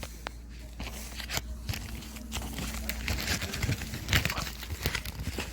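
Thin plastic packaging crinkling and rustling in the hands as photocards are wrapped, with irregular small clicks and crackles and a denser patch of rustling a few seconds in.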